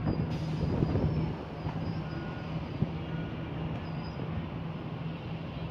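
Jet ski engine running at a steady pitch over a rushing wash of noise, a little quieter after about a second.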